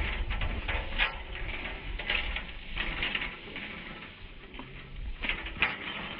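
Wind buffeting the microphone with a low rumble, and several short high-pitched sounds over it.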